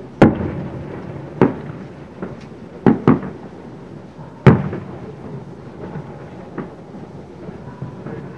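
Aerial firework shells bursting: five loud booms in the first five seconds, two of them close together, each trailing off in a rumbling echo, with fainter pops in between and after.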